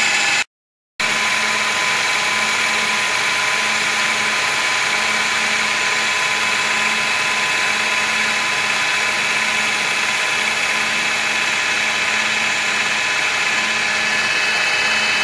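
TOS FN20 milling machine under CNC control, its end mill cutting half-inch stainless steel plate: a steady machining whine with a low hum, cutting out completely for a moment about half a second in.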